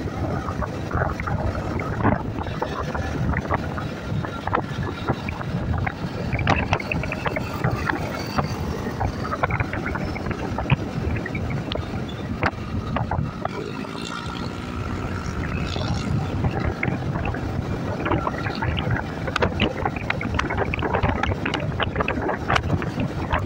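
Wind buffeting the microphone of a riding Yamaha motorcycle, with the engine and road noise running underneath.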